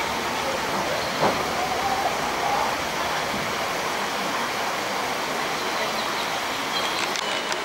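Shallow stream running steadily over rocks, a continuous rushing of water.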